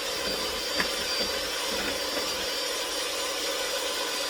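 Electric mixer running steadily on medium speed, beating a cheesecake filling in a bowl, with a single short tick about a second in.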